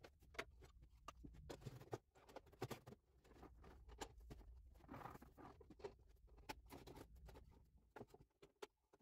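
Faint handling sounds of a wooden table saw fence being moved and set on the steel saw table: scattered light taps and knocks with a soft scrape of wood sliding on the table.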